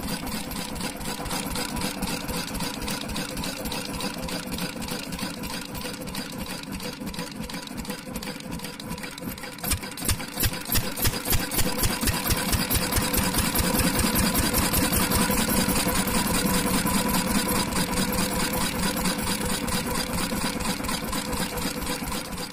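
Single-cylinder Kirloskar diesel engine running slow on a cut fuel lever, its beats fading a little; about ten seconds in the fuel is let back in and it fires with a run of loud knocks and picks up speed, then runs steadily faster.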